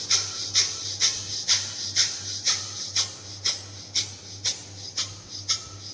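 Rapid forceful breathing through one nostril, sharp puffs of air in and out at about two a second, in an even rhythm: single-nostril pranayama (surya bhedana / chandra bhedana) done to clear a blocked nose from a cold. A faint steady low hum lies underneath.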